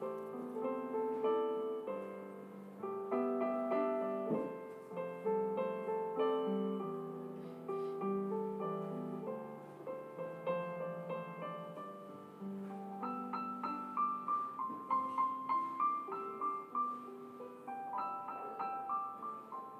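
Background piano music: a steady succession of single notes and chords.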